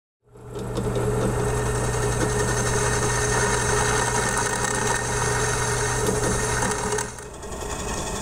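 Bench drill press starting a moment in and running steadily, its bit boring into the cast aluminium inner primary cover of a Vincent motorcycle. The sound dips briefly about seven seconds in, then carries on.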